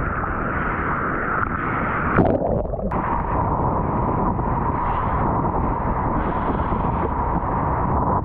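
Rushing water and wind buffeting a GoPro's microphone while surfing, a steady rough rumble. About two seconds in there is a sudden hit, and the sound goes muffled for under a second before the rush returns.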